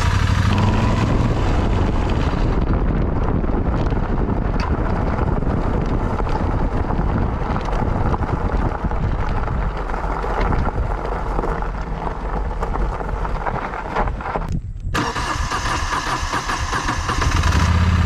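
Moto Guzzi Griso V-twin motorcycle engine running as the bike rides along a gravel road, with wind and road noise over it. There is a brief break about three-quarters of the way through.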